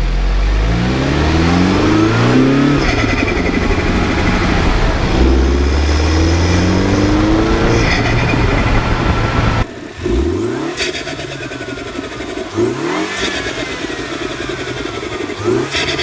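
MINI F56 John Cooper Works' turbocharged four-cylinder, fitted with a Gruppe M intake and JCW Pro exhaust, accelerating with its pitch climbing in repeated rising sweeps. After a sudden cut about ten seconds in, quieter, shorter revs rise and fall three times.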